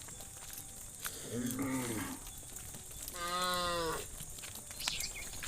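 Cattle mooing twice: a shorter call about a second and a half in, then a longer, louder one about three seconds in.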